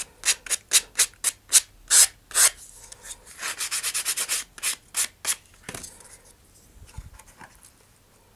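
Sandpaper on a sanding block rubbed quickly back and forth along the edge of a thin vacuum-formed plastic canopy piece, to even and square the edge. About four to five strokes a second in two runs, dying away about six seconds in.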